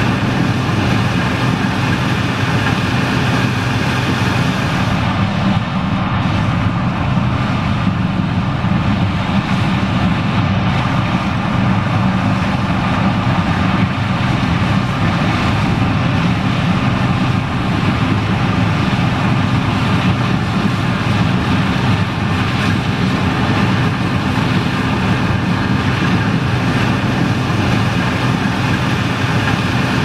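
A John Deere combine running under load while harvesting corn: a steady, loud machine drone of engine and threshing with several constant humming tones, unchanging throughout.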